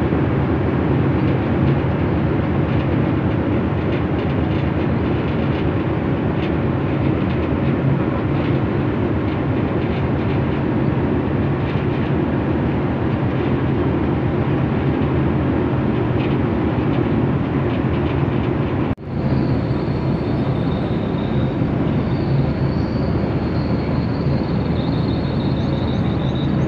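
Tugboat's diesel engine running steadily under way, a constant low drone. A brief break about two-thirds of the way in, after which a faint high thin whine comes in over the drone.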